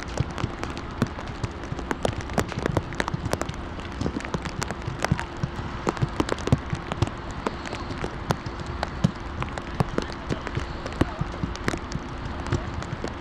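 Heavy rain falling: a steady patter with many sharp drop hits several times a second, over a faint steady hum.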